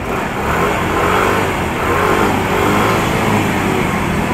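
A motor vehicle's engine running close by, its pitch rising and falling a little as if revving or pulling away.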